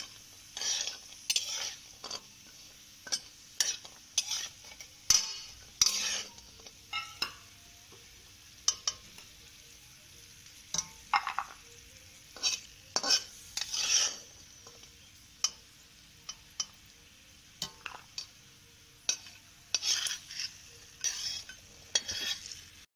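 Flat metal spatula scraping and clinking against a metal kadhai as roasted almonds and raisins are stirred and scooped out of hot ghee, in short irregular strokes with a light sizzle.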